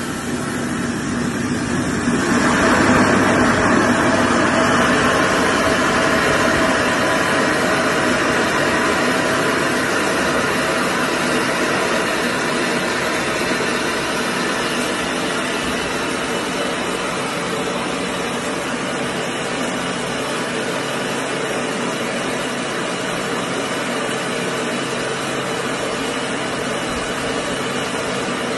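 Compact combined rice mill running: a steady machine hum with a rushing hiss of grain going through, swelling about two seconds in and then holding even.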